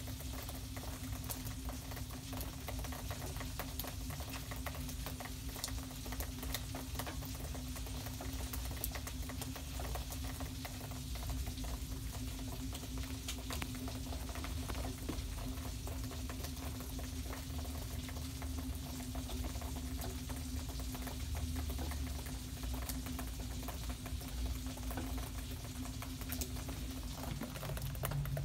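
Food sizzling in a pan: a steady fine crackle with many small ticks, over a low steady hum.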